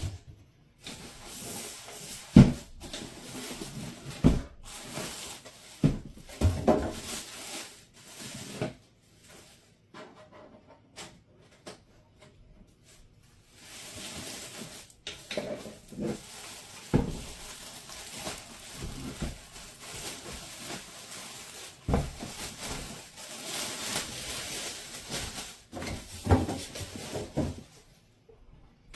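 Unboxing handling noise: rustling and scraping of packaging against a PC case, broken by several sharp knocks and bumps, with a quieter stretch near the middle.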